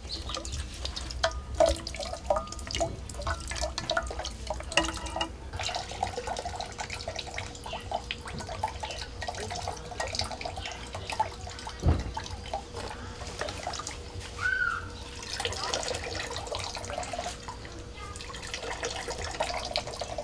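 Water trickling and dripping into a metal pot, with many small irregular splashes and one louder knock about twelve seconds in.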